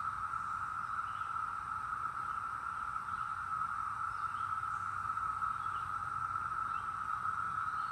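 Chorus of Brood X periodical cicadas: many insects calling at once in one steady, unbroken drone.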